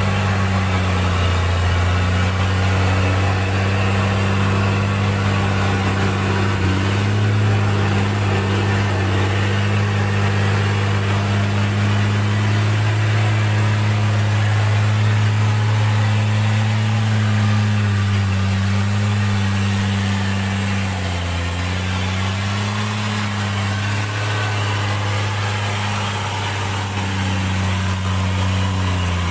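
Hino 500 dump truck's heavy diesel engine running steadily under load as the truck struggles with its wheels sunk in slippery red clay; the pitch wavers slightly and dips briefly about two-thirds of the way through.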